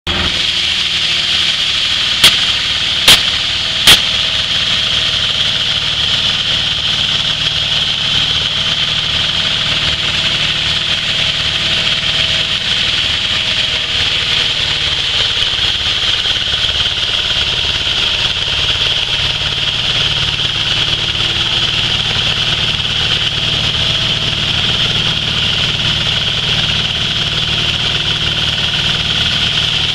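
Hammer mill driven by a small petrol engine, running steadily while grain is fed in: a steady high hiss from the grinding chamber over the engine's low drone. Three sharp knocks a little over two seconds in, under a second apart, are the loudest sounds.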